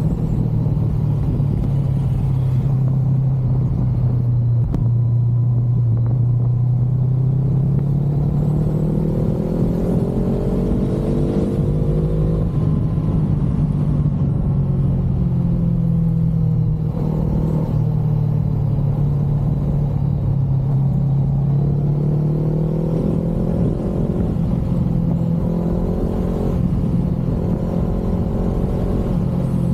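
Honda CBR500R parallel-twin engine running through an Akrapovic exhaust, a deep steady note whose pitch slowly sinks, climbs, sinks and climbs again with the throttle, broken briefly twice in the middle, over a low rumble.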